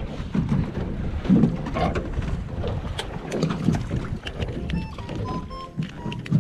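Wind and water noise on a small fishing boat at sea, with irregular low knocks and a few clicks. Background music with steady held notes comes in about three-quarters of the way through.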